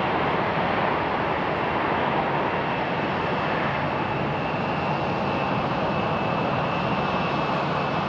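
McDonnell Douglas MD-11 trijet's engines heard from a distance as the airliner slows on its landing rollout: a steady rushing noise with a thin high whine that eases off a little in the second half.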